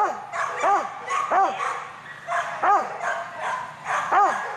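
A dog barking as it runs, five short barks, each rising and then falling in pitch, spaced about 0.7 s apart with a longer pause midway.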